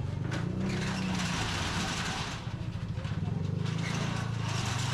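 Steel roll-up shutter door being pulled down to test it after a repair, its slats rattling as they run down the guides, with a short lull a little past the middle. A steady low hum runs underneath.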